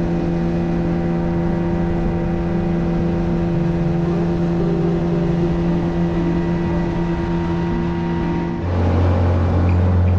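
Tiller-steered outboard motor on a small boat running steadily at cruising speed. About eight and a half seconds in, its note changes to a deeper, slightly louder one.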